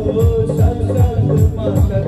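Live band music played loud through a PA: a wavering melody over bass and a quick, steady drum beat.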